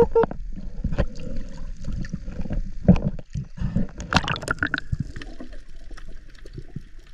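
Water gurgling and splashing close to the microphone, with irregular knocks and clicks.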